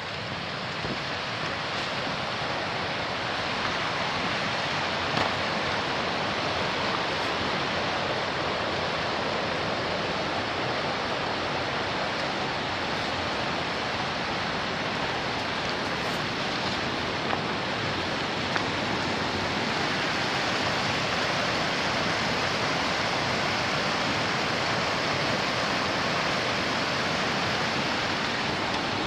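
Steady rush of river rapids pouring over boulders, swelling over the first few seconds and then holding level.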